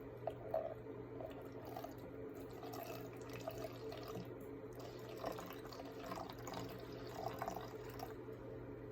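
Vinegar being poured into a measuring cup: a faint liquid trickle with small drips and splashes.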